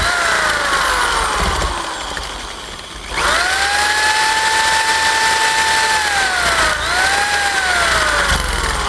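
Electric drill whine as it spins the cable-drive input of a Honda CB350 speedometer to test the gauge. It revs up and winds down, then runs steady for about three seconds. It slows, picks up again briefly, and winds down near the end.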